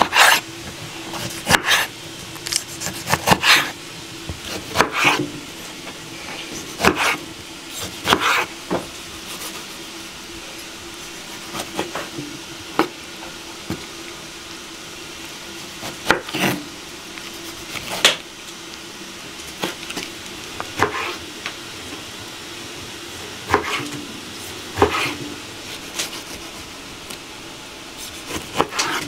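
Chef's knife slicing tomatoes on a wooden cutting board: irregular sharp knocks of the blade meeting the board, in quick clusters at first and more spaced out later.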